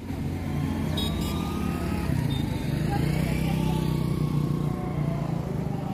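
Motor traffic on a highway: a steady low rumble that swells toward the middle and eases off near the end, as a vehicle passes.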